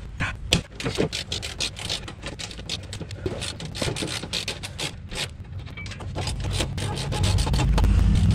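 Metal hand tools clicking, knocking and scraping against the underside of the car as the subframe bolts are worked on, in short irregular strokes. From about six seconds in a low steady rumble builds up and drowns them out.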